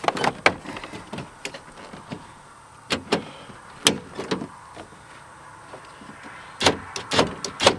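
Sharp clicks and knocks from working on a pickup truck's door by hand, irregularly spaced, with a quick run of them near the end.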